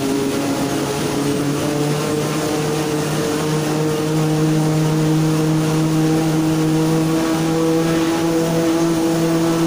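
Automatic corrugated board making machine running, a steady machine hum over mechanical noise, its pitch stepping up slightly about two seconds in and again about four seconds in.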